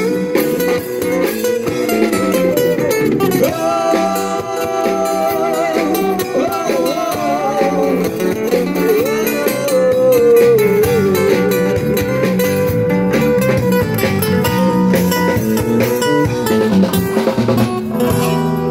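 Live busker band playing a song with guitars and a drum kit, a voice singing the melody over them.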